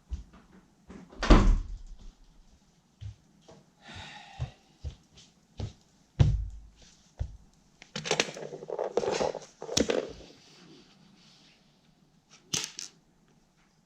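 Handling noise of objects being picked up and set down: scattered knocks and two heavier thumps, with a stretch of rustling and scraping about eight seconds in.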